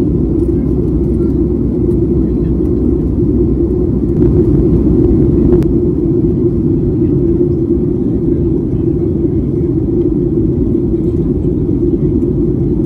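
Steady low drone of a Boeing 737-800's cabin in flight, from the CFM56-7B engines and rushing airflow, with a faint click about five and a half seconds in.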